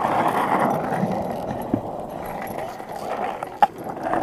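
Skateboard wheels rolling on rough asphalt, a steady gritty rumble, with one sharp knock about three and a half seconds in.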